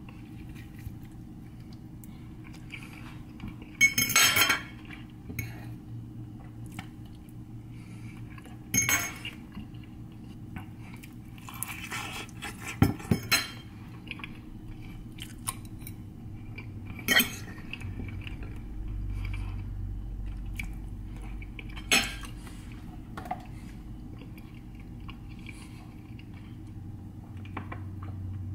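Metal eating utensil clinking and scraping against a dish every few seconds as someone eats, with faint chewing in between.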